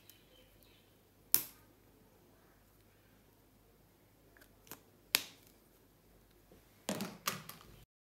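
Sharp plastic clicks as the cap of a highlighter pen is pulled off and snapped back on: single clicks spaced a few seconds apart, then a quick run of clicks near the end.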